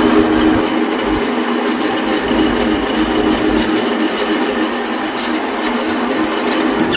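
Metal lathe running under cut: a steady machine hum and hiss with scattered light clicks.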